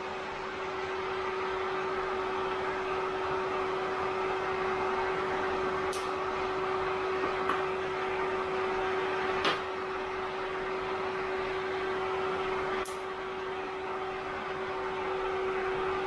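Cooling fans and water pump of a Peltier water-cooling rig running, a steady whir with one clear steady hum tone in it. Three short sharp clicks come about 6, 9.5 and 13 seconds in.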